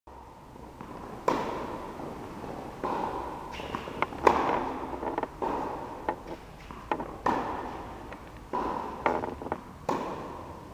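Tennis racket striking the ball in a rally on an indoor court: a series of sharp pops, roughly one every second or two, each echoing in the hall.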